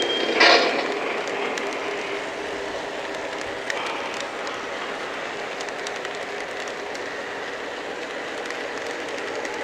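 Model train running along the layout track, a steady rolling rumble with a faint motor hum. A short burst of hiss comes about half a second in.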